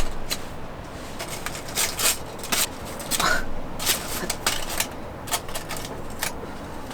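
Light handling noises from camp cookware and food: about a dozen irregular sharp clicks, taps and short rustles.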